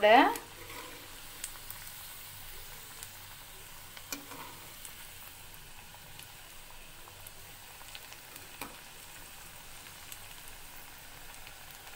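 Taro pieces deep-frying in hot oil in a kadai: a steady, soft sizzle of bubbling oil as the pieces turn crisp, with a few faint clicks.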